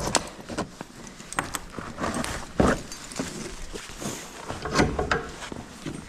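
Irregular footsteps, knocks and light metallic clinks as a horse is led out of the barn, with the strongest knocks at the start and about two and a half and five seconds in.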